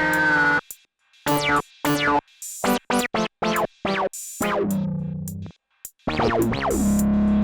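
Dave Smith Prophet 6 analog synthesizer playing a preset: a held chord cuts off about half a second in, then short stabbed notes with falling filter sweeps and gaps between them, and a sustained chord with quick repeating notes returns about six seconds in.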